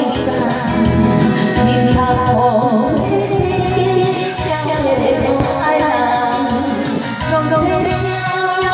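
A singer singing a melody over a backing band, with a steady low beat running under it.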